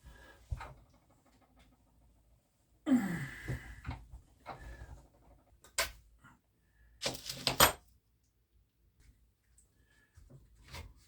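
Handling noise from reassembling a Benjamin air gun: a scraping rush about three seconds in, then several sharp clicks around six to eight seconds in.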